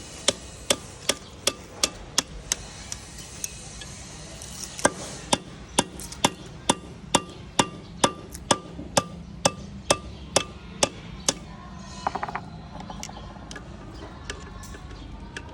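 A hammer striking metal in a steady rhythm, about two or three blows a second, with a ringing note on the early strikes. The blows pause briefly around four seconds in and stop about eleven seconds in, followed by a short metallic clatter.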